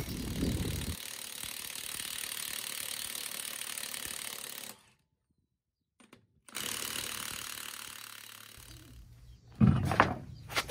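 Cordless impact wrench whirring as it spins lug nuts off a semi truck's steer-axle wheel, in two runs broken by a short silence. It is followed, near the end, by a few heavy clunks as the wheel and tire come off the studs.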